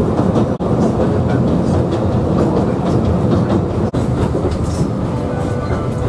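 Alishan Forest Railway's 762 mm narrow-gauge train running, a steady rumble of wheels and carriages with rail clatter, broken by two very brief dropouts, about half a second in and near four seconds in.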